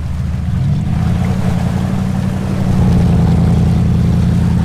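Jeep engine running steadily at low speed as it fords a shallow creek, with water splashing and sloshing around the tyres. The engine gets louder a little past halfway.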